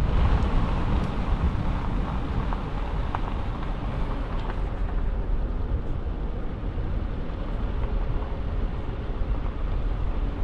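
Car driving along a road: a steady rumble of engine and tyre noise.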